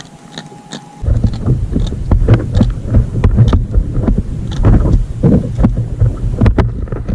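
Wind buffeting the microphone, starting suddenly about a second in, with water slapping and knocking against a fishing kayak's hull.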